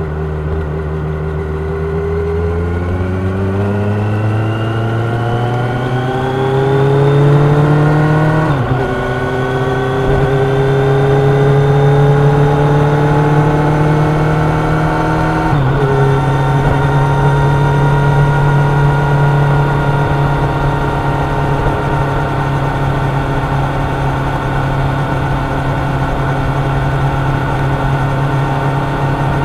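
Kawasaki Ninja 1000's inline-four engine pulling up through the gears. The revs climb, drop sharply with an upshift about a third of the way in, climb again, drop with a second upshift about halfway, then hold steady at cruising speed.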